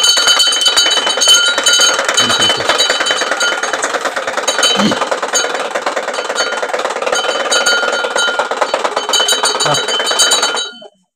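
Hindu temple bells rung rapidly and without a break, a dense metallic clanging with a steady ring, stopping suddenly about a second before the end.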